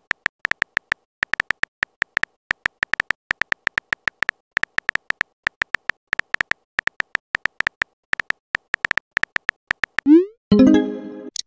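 Texting-app keyboard tap sounds: rapid, irregular clicks as a message is typed out. About ten seconds in, a quick rising whoosh and a short fading chime as the message is sent.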